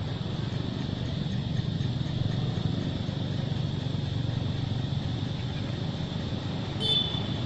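A steady low rumble, like distant engine traffic, with a short high squeak about seven seconds in.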